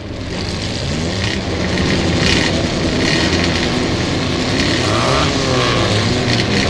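Race car engine sound effect on a vinyl record, fading in over the first couple of seconds and then holding loud, its pitch rising and falling as it revs.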